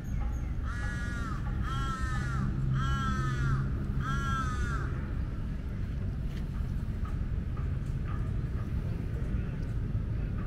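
A crow cawing four times in a row, about one caw a second, each caw rising then falling in pitch, over a steady low background rumble.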